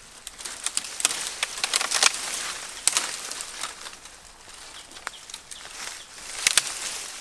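Leafy branches and brush rustling as they are pulled and pushed aside by hand, with several sharp clicks of twigs among the rustle, loudest about two seconds in and again near the end.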